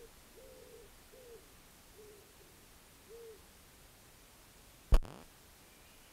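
Short, soft hoot-like calls, each rising and falling in pitch, repeat at uneven intervals for the first three seconds or so. A single sharp click, the loudest sound, comes about five seconds in.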